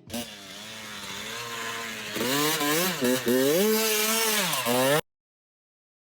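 Dirt bike engine being revved, its pitch swinging up and down with repeated blips of the throttle and getting louder, then cutting off abruptly about five seconds in.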